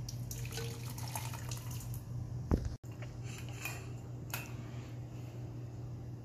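Hot hibiscus tea poured from a steel saucepan through a mesh tea strainer into a ceramic mug, trickling and splashing for about two seconds. About two and a half seconds in comes a dull thump, then a few light clicks as the strainer is handled.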